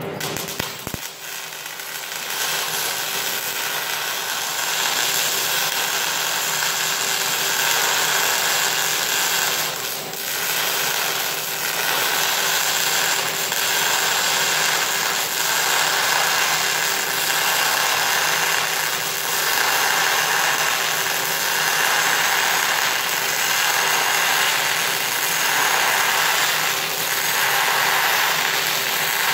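MIG welding arc on a steel I-beam: a steady crackling hiss, spatter and all, that strikes up about a second in and runs on with only a brief break about ten seconds in.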